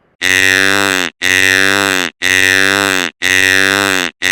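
Deer call played as a sound effect: a buzzy, pitched call just under a second long, repeated identically about once a second, each one falling slightly in pitch.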